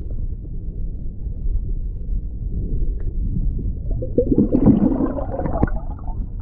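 Underwater sound of a lake heard through a submerged camera: a steady low muffled rumble, then about four seconds in a louder spell of bubbling and churning water as a released carp swims off out of the landing net and a cloud of bubbles rises.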